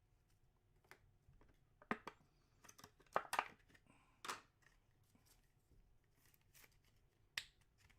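Faint handling of trading cards: a scatter of short clicks and rustles as cards are slid, flipped and tapped, with a louder cluster two to three and a half seconds in.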